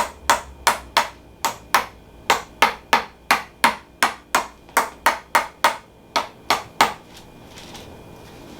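Quick, regular sharp taps, about three a second, from a chiropractor tapping inside the pelvis at the sacroiliac (SI) joint to loosen it. The taps stop about seven seconds in.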